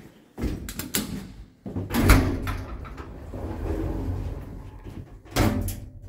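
Lift's sliding doors closing: clicks and knocks, then a heavy thud about two seconds in, followed by a steady low rumble and another bang near the end.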